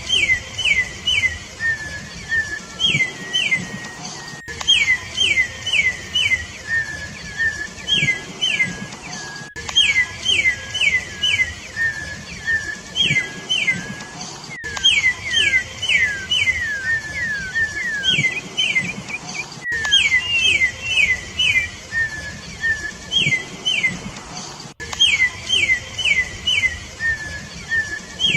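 Campo troupial (corrupião) singing: phrases of three to five quick, falling whistled notes, repeated every few seconds, with lower, softer notes between the phrases.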